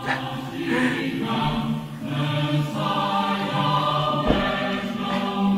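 Choir music: voices singing long held notes that change every second or so.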